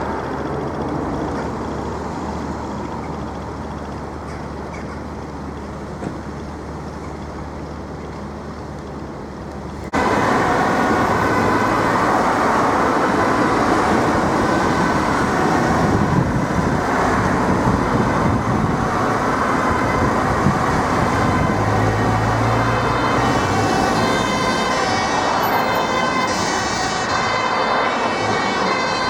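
Road traffic running past. About ten seconds in, it cuts abruptly to a fire engine's siren sounding over its engine and traffic noise as the engine comes by on an emergency run.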